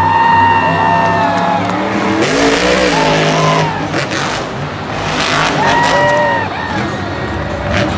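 Monster truck engines, Grave Digger among them, revving and running, their pitch swinging up and down, with two louder surges of engine noise partway through.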